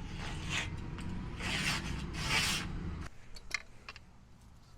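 Steel rebar being bent by hand: a creaking, scraping metal strain that swells three times over about three seconds and stops abruptly, followed by a few light clicks.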